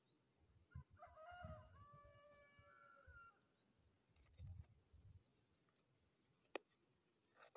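A rooster crowing once, faint, starting about a second in and lasting about two seconds, its drawn-out final note falling slightly at the end. Low thumps and one sharp click later on.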